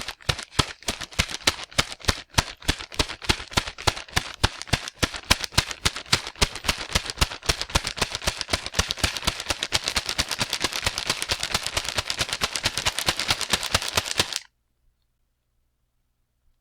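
Running footsteps sound effect: a man's fast footfalls that quicken into a rapid patter, then cut off suddenly near the end.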